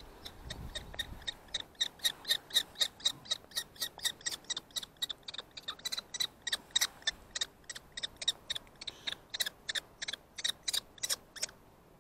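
Common kestrel calling: a rapid series of short, shrill 'kee-kee-kee' notes, about four a second, which breaks off about a second before the end.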